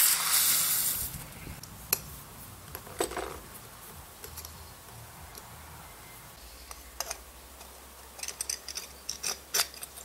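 Hot, freshly welded metal piece quenched in a tray of water, sizzling with a loud hiss that fades over about a second. Scattered clicks and knocks of metal parts being handled follow.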